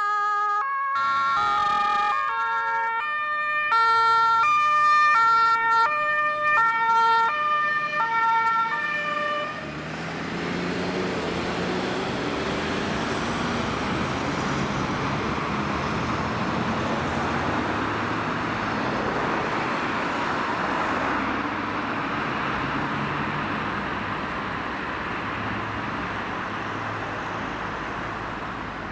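A German emergency vehicle's two-tone horn (Martinshorn) alternating between a low and a high note for about nine seconds, then stopping. After that comes steady road noise and engine rumble as the vehicles drive away.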